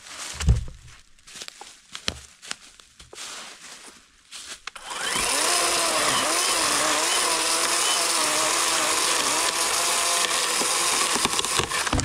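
Worx 40-volt cordless electric chainsaw with an 18-inch Oregon bar starting about five seconds in and cutting steadily through a fallen tree log, its motor pitch dipping and wavering under load, then stopping just before the end. Before it, a few knocks and rustles.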